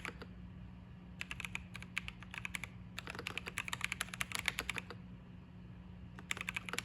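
Typing on a Keychron V5 Max mechanical keyboard with Gateron Jupiter switches: fast key clacks in three runs, separated by short pauses.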